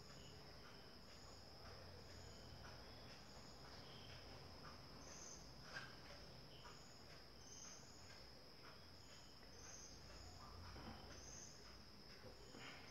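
Near silence with faint, steady high-pitched insect chirping, pulsing about every 0.7 s, and one small click about six seconds in.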